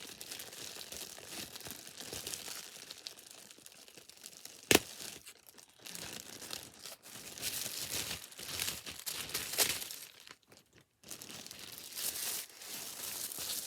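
Packaging crinkling and rustling as a handbag is pulled out of its wrapping, in irregular bursts with a brief lull near the end. A single sharp click almost five seconds in is the loudest sound, with a smaller one a few seconds later.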